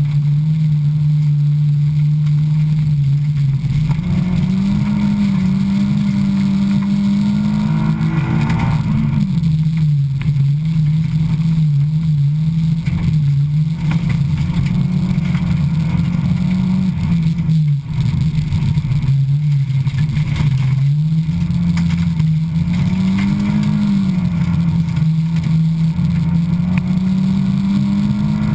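Honda Civic race car's engine running hard, heard from inside the cabin; the engine note holds, climbs and drops several times with the throttle and gear changes.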